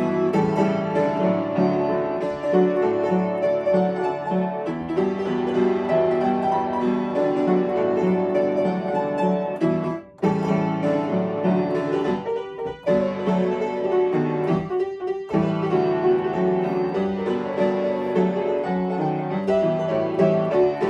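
Upright piano playing a song arrangement, a melody over chords. The playing breaks off briefly about ten seconds in, and again around thirteen and fifteen seconds.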